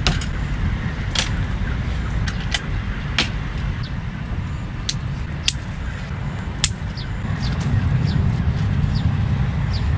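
Sharp clicks and clinks of camping gear being handled, metal hooks on a hanging gear rack among them, about half a dozen spread out, over a steady low rumble.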